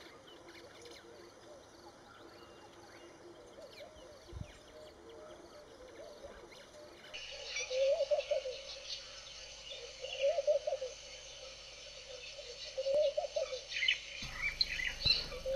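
Wild birds calling: from about halfway, a short wavering call repeats roughly every two and a half seconds over higher chirps. Before that there is only faint background with one soft thump.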